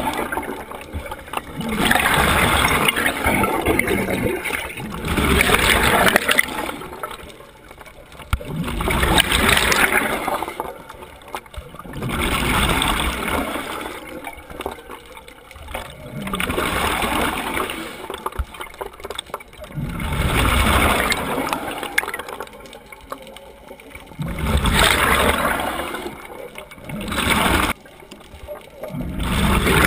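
Scuba diver's regulator breathing heard underwater: a gurgling rush of exhaled bubbles about every four seconds, each lasting a second or two, with quieter gaps between breaths.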